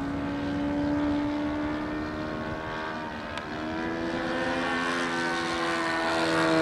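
Radio-controlled Gee Bee racer model airplane flying a pass, its motor and propeller giving a steady buzzing drone. The pitch climbs slightly, shifts about three seconds in, and the drone swells louder near the end as the plane comes closer.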